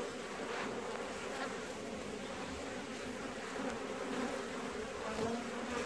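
Honeybees buzzing, a steady hum of many bees.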